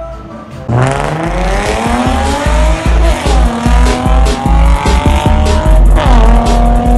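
Car engine revving as a sound effect. It starts suddenly about a second in and climbs in pitch, drops back, then revs up again near the end, over music with a pulsing bass beat.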